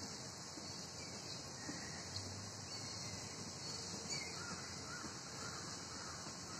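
Faint outdoor ambience: a steady hiss with a few faint bird chirps repeating in the second half.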